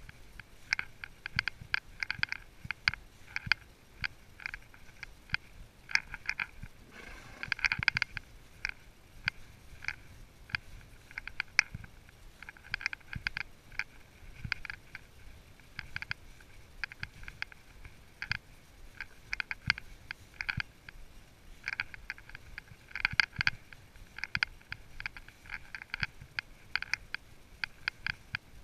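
A ridden horse walking on a trail, heard from the saddle. Rapid, uneven clicking and rattling of the gear comes with its strides, over soft low thuds. A brief louder rustle swells about seven seconds in.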